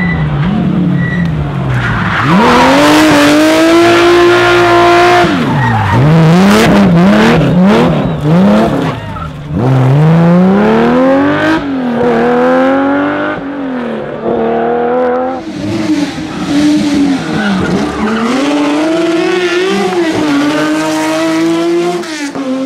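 Porsche 911 rally car's air-cooled flat-six revving hard through repeated gear changes, the pitch climbing and then dropping every second or two, with some tyre squeal.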